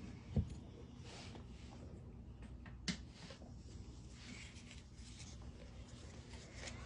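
Faint handling sounds at a workbench: soft scrapes and rustles with a few light clicks, a sharper click about three seconds in.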